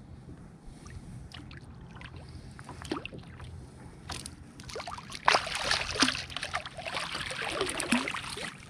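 Water lapping against a kayak hull with a few light knocks. From about five seconds in, a hooked ray breaks the surface and splashes hard beside the kayak.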